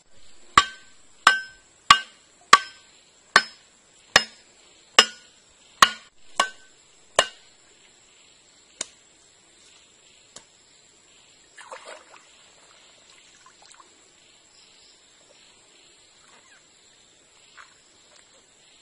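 A machete blade striking the top of a wooden stake, driving it into the streambed: about ten sharp, ringing blows in steady rhythm, about one every 0.7 seconds, then two more spaced blows. About twelve seconds in comes a brief slosh of water.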